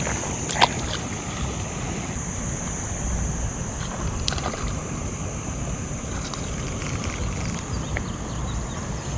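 Steady rush of flowing stream water with wind buffeting the microphone, under a constant high-pitched insect-like whine. Two sharp clicks, about half a second and four seconds in.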